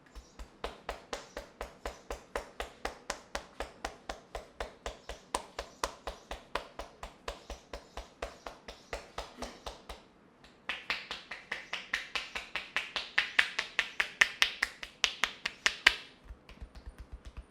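A run of sharp, evenly spaced clicks, about three to four a second, that stops about ten seconds in. After a brief pause a brighter, faster run of clicks follows for about five seconds, then drops away near the end.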